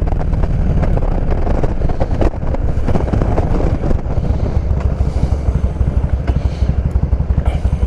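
Harley-Davidson touring motorcycle's V-twin engine running under wind noise. In the second half its firing pulses come through more distinctly as the bike slows.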